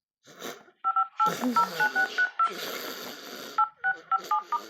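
Phone keypad dialing tones: short two-note beeps, one for each key pressed while entering a phone number. They come in two quick runs with a pause between, over a hissing noise.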